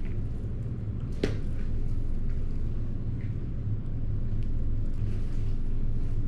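Steady low hum, with a single sharp click a little over a second in.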